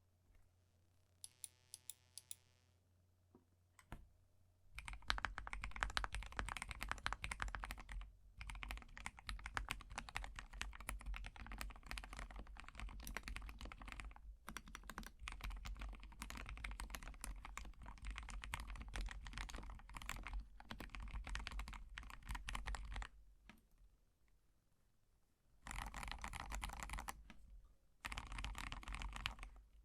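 Typing on an acrylic-stacked, gasket-mount Alice-layout mechanical keyboard with Everglide Aqua King linear switches and AKKO ASA keycaps: a few single keystrokes, then a long run of fast, continuous typing, a brief pause, and two shorter runs of typing near the end.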